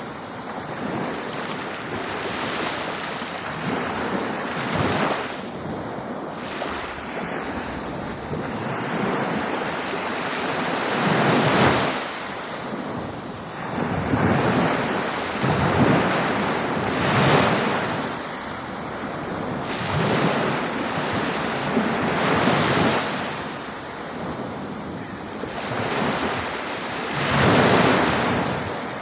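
Surf washing in over and over, the noise swelling and falling back every two to three seconds, with wind buffeting the microphone.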